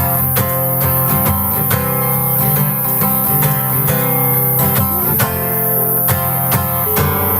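Acoustic guitar strumming chords at an even loudness, playing music with no singing.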